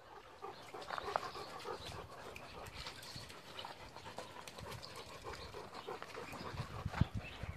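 Several dogs panting close by, with scuffling and small knocks as they jostle; a single thump near the end.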